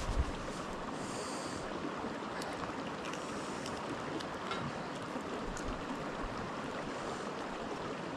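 Steady rushing of a nearby river, opening with a single knock. Short high insect buzzes come through about a second in and again around three and seven seconds.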